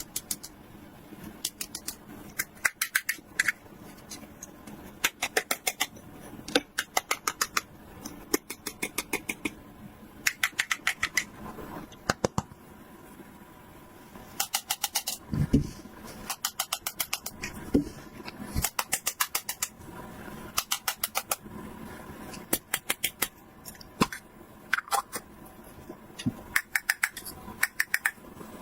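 Small plastic toy pieces or packaging being handled: short runs of quick, sharp clicks, several a second, separated by brief pauses, with a low knock about fifteen seconds in.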